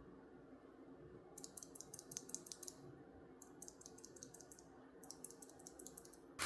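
Faint clicking of keys on a YUNZII L75 low-profile mechanical keyboard, in three short runs of quick presses.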